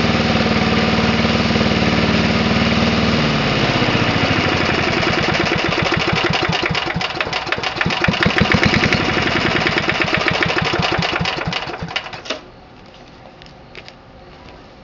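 Vertical-shaft Briggs & Stratton 92902 single-cylinder engine on a vintage walk-behind rotary mower running steadily, then slowing about three seconds in to a low, uneven beat of separate firing strokes before stopping about twelve seconds in.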